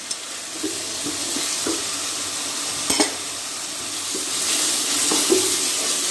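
Onion paste and ground spices sizzling in an aluminium pot while a wooden spatula stirs them, with a single knock about three seconds in. The sizzle grows louder near the end.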